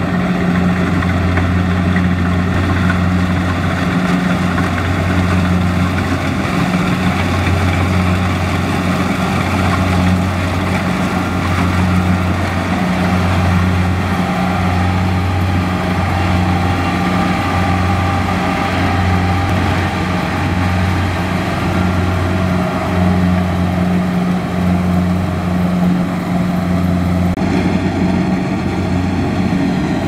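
Kubota DC-70 Plus rice combine harvester running steadily while cutting rice: a loud, even engine drone with a deep low hum and the clatter of the machinery over it.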